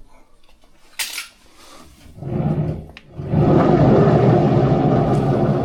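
AEG Lavamat 6000 Series washing machine drum starting to turn: a knock about a second in, then from about two seconds a rattling rumble with a steady motor hum that grows loud and holds. A rumble like this is the sign of the worn drum bearings the machine is being repaired for.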